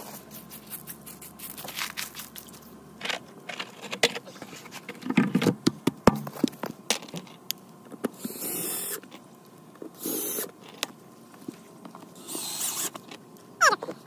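A plastic sump basin lid being set in place with scattered clicks and knocks, then a cordless drill driving screws into the lid in three short whirring bursts in the second half.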